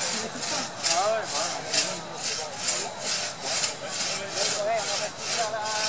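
Two-man crosscut saw cutting through an oak trunk, each push and pull of the blade a rasping stroke, about three strokes a second in a steady rhythm. This is the felling cut, sawn from the side opposite an axe notch.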